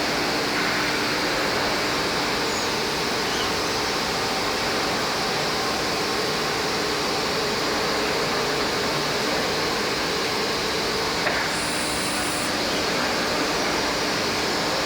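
IMEAS LCSI 190 two-head panel sanding machine running steadily, an even mechanical noise with a constant low hum.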